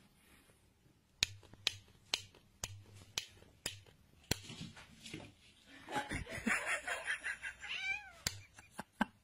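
The ring-pull tab on a metal can's lid is flicked, giving sharp metallic clicks about twice a second. Then a cat meows repeatedly, answering the sound.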